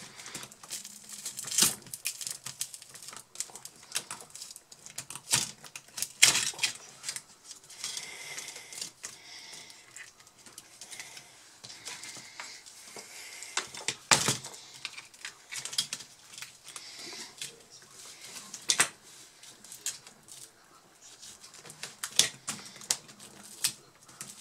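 Irregular clicks, taps and knocks of hand tools and plastic parts being worked during a laptop keyboard replacement, with a few sharper knocks louder than the rest and a stretch of scraping in the middle.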